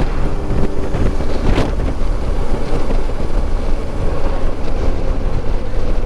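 Heavy wind buffeting on the microphone while riding a Suzuki V-Strom 650 motorcycle, with the bike's V-twin engine running steadily underneath.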